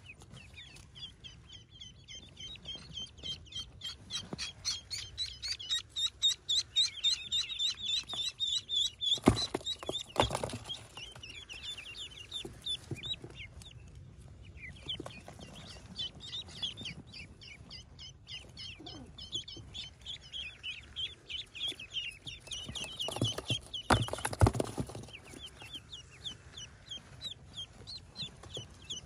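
Ducklings peeping in long runs of quick, high chirps, several a second, rising and falling in bouts. A few brief rustles or knocks sound around the nest.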